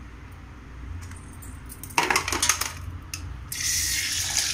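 Steel kitchen utensils clattering on a counter about two seconds in, followed near the end by a steady hiss that lasts a little over a second.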